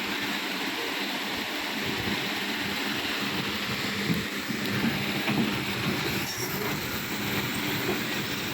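Steady rush of river water pouring through a breached dam, with a heavy machine's engine running underneath.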